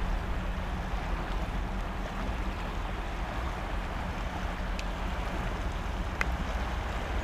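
Steady rush of flowing river water, with a low rumble of wind on the microphone underneath; two faint ticks in the second half.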